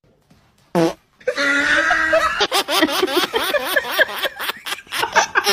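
Fart sounds: a short falling squeak, then a drawn-out buzzing one lasting just over a second. A woman then laughs hard for about three seconds.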